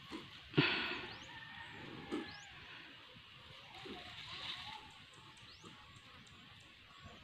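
Quiet outdoor rural ambience with faint, high, short rising bird chirps repeating throughout. A short rushing noise comes about half a second in, the loudest sound, with a smaller one near two seconds.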